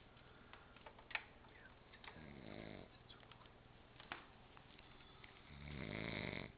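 A sleeping elderly woman snoring: two long, low snores about three seconds apart, the second louder. A couple of short sharp clicks fall between them, the first about a second in.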